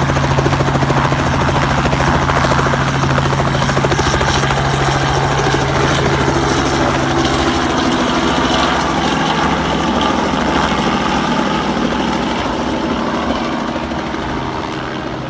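Robinson R44 helicopter lifting off and passing low overhead: a steady engine-and-rotor drone with rapid rotor chop. The drone's low tone shifts about halfway through, and the sound fades as the helicopter climbs away near the end.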